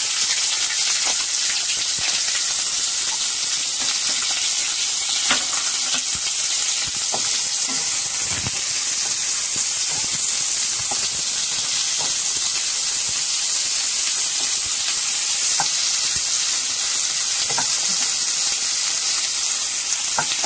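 Chopped onions sizzling in hot oil with mustard seeds, curry leaves and dried red chilli in a non-stick kadhai, stirred with a wooden spatula. The sizzle is a steady hiss with occasional light taps of the spatula.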